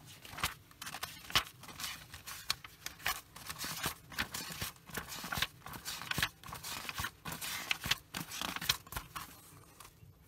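Paper rustling and crackling close to the microphone as notebook pages and banknotes are handled, in a rapid, irregular run of rustles and clicks.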